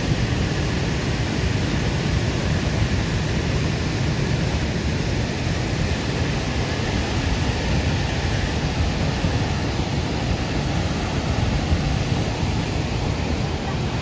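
Loud, steady rushing of a waterfall.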